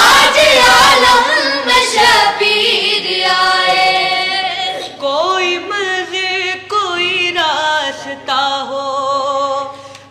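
A group of boys singing an Urdu manqabat (devotional poem) unaccompanied, drawing out long, wavering notes without clear words. The voices thin out about halfway, leaving one or two singers carrying the ornamented line.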